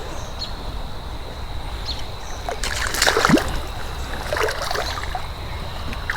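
Shallow creek water running over rocks, with a burst of splashing about three seconds in and a few smaller splashes after it.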